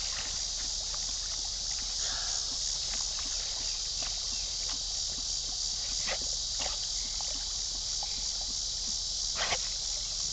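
Steady, high-pitched chorus of summer insects in the trees, with a few brief sounds from two swimming Labradors, the loudest about nine and a half seconds in.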